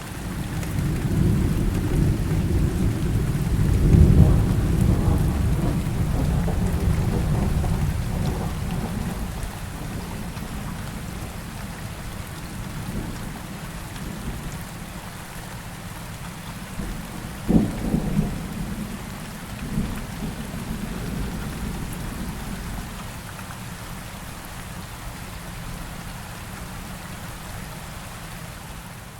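Steady rain with rolling thunder: a long, deep rumble that swells to its loudest about four seconds in and fades away, then a sharper crack of thunder with a short rumble about two-thirds of the way through.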